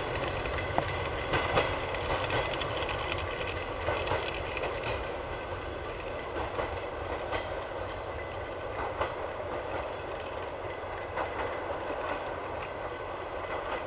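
DR1A diesel multiple unit running away into the distance: a steady drone with wheels clicking over rail joints every second or two, slowly fading as it recedes.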